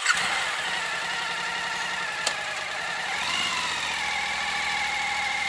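Suzuki V-Strom motorcycle engine running at low revs as the bike is ridden slowly, with a brief rise and fall in revs about three seconds in.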